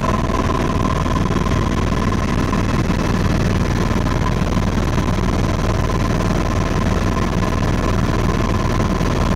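Tour helicopter's engine and rotor noise heard inside the cabin in flight: a steady loud drone with a fast low throb from the rotor and a thin steady whine.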